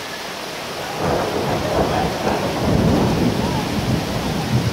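Thunder rumbling over steady heavy rain. The rumble sets in about a second in, swells around the middle and is easing near the end.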